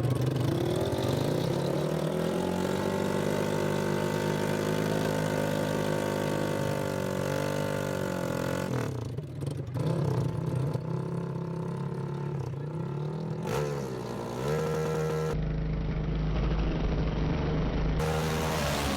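ATV engines running and revving, their pitch rising and falling and holding steady for long stretches, with a deep low rumble for a couple of seconds near the end.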